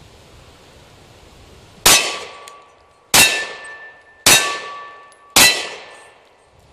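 Four shots from a Beretta Nano 9mm subcompact pistol, starting about two seconds in and a little over a second apart. Each is a sharp crack followed by a short ringing tone that fades away. The last is the final round of the magazine.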